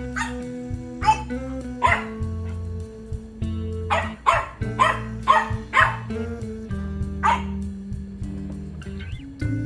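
French bulldog puppy barking in short, sharp barks, about eight of them with uneven pauses, stopping about three-quarters of the way through. Guitar music plays underneath.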